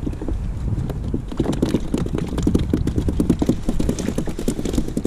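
Rapid, irregular patter of freshly caught mackerel flapping and drumming against the kayak's plastic deck, growing busier about a second and a half in.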